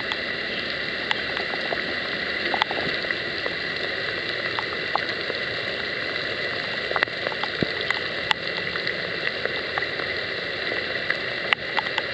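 Heavy rain falling steadily, with scattered sharp taps of drops striking hard surfaces close by.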